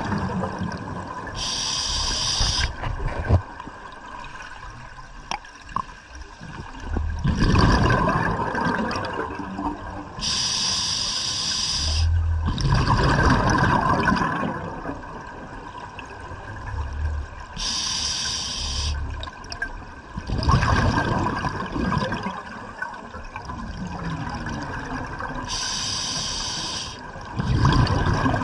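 Scuba diver breathing underwater through an open-circuit regulator, heard in slow cycles: a short hiss of inhaled gas, then a rumbling burst of exhaust bubbles, about every eight seconds. A faint steady hum runs underneath.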